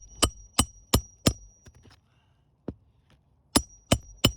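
Hammer driving roofing nails into an asphalt shingle: quick strikes about three a second in two runs, with a single strike in the pause between them and a ringing note over each run.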